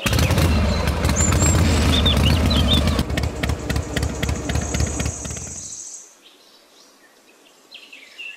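Loud low engine-like rumble with rapid clicking over birds chirping; about six seconds in the rumble fades away, leaving faint birdsong.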